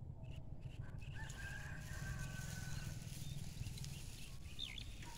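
Open-field ambience with a steady low wind rumble on the microphone, birds calling faintly, and two sharp high chirps near the end.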